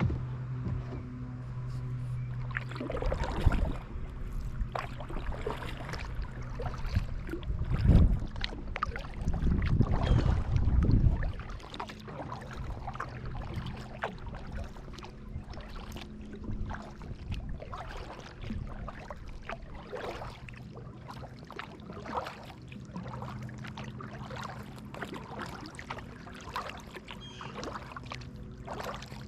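Kayak paddling on a pond: paddle blades dipping and splashing with water dripping off them, and a few heavier low bumps and rumbles in the first half.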